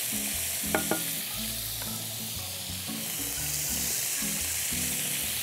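Baby squid pieces sizzling as they brown in hot oil in a frying pan, stirred with a wooden spoon; a couple of short knocks about a second in.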